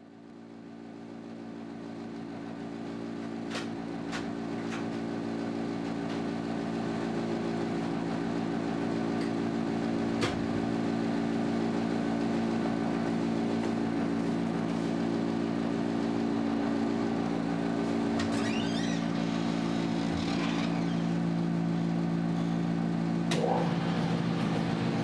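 A steady low machine hum made of several even tones, fading in at the start, with a few faint clicks along the way.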